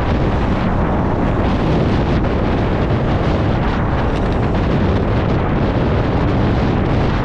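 Wind rushing over the microphone while riding a scooter, a loud steady rumble with the scooter and road noise underneath.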